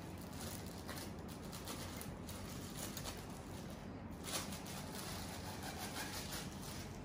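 Faint rustling and small clicks of hands handling a saxophone neck and its packing.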